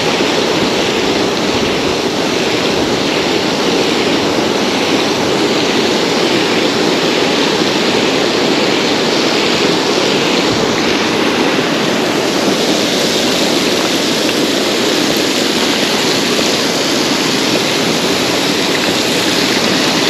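Steady, loud rush of fast-flowing stream water, unbroken throughout.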